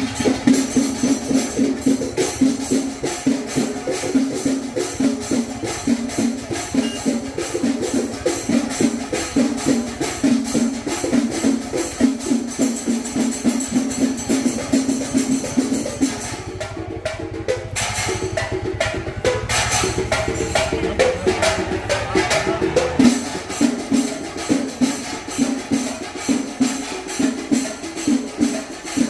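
Chenda melam: Kerala chenda drums beaten in a fast, dense rhythm together with ilathalam cymbals. The beat shifts for several seconds past the middle, then settles back into the steady pattern.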